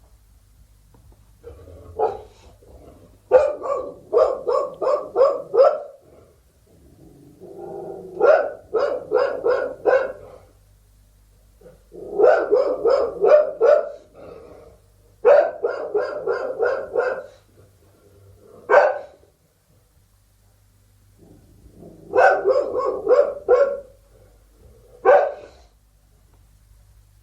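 Bull terrier barking in quick volleys of four to six barks, with short pauses between volleys and a couple of single barks near the end.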